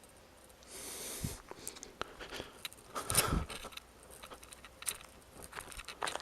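Quiet movement and handling noise: scattered clicks and rustling, a brief rustle about a second in, and a louder short scrape or thump about three seconds in.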